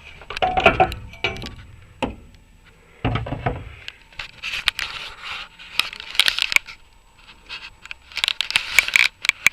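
Metal tools and bolts clinking, tapping and scraping while the bolts of a Lada Niva's rear suspension trailing arm are worked loose, with a dull knock about three seconds in.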